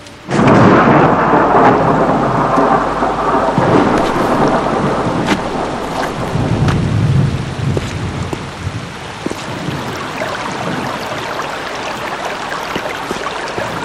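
Heavy rain with thunder, starting suddenly and loud, then easing to a steady downpour, with a low roll of thunder about halfway through.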